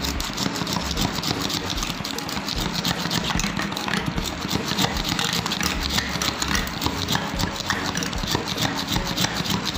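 A wire whisk beating ghee and powdered sugar in a glass bowl, its wires clicking rapidly and rhythmically against the glass. The ghee and sugar are being creamed until they combine and change colour.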